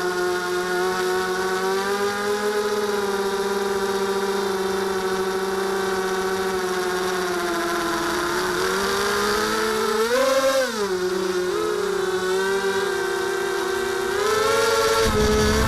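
Mini quadcopter's electric motors and propellers whining at a steady pitch. The pitch rises sharply and falls back once about ten seconds in. A low rumble joins near the end.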